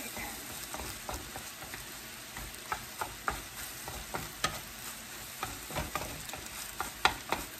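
Chopped chicken and vegetables sizzling in a wok while being stirred, with irregular scrapes and clacks of a spatula against the pan and one sharper knock near the end.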